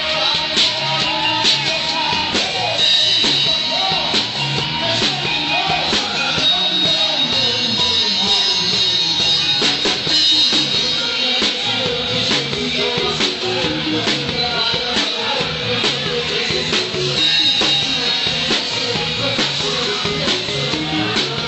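Live band playing pop-rock: a drum kit keeps a steady beat under electric guitar, with a voice singing.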